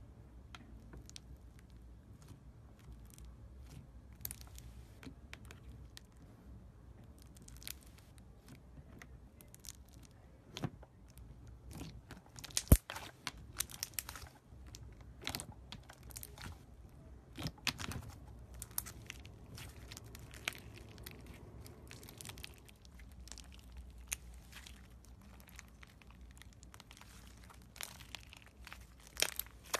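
Hands kneading and stretching white slime mixed with small green and red beads: scattered crackles and sharp clicks as the slime folds and the beads are squeezed, with one louder pop about halfway through.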